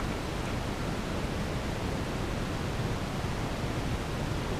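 Steady wind noise buffeting the camera's microphone: an even rushing with a low fluttering rumble.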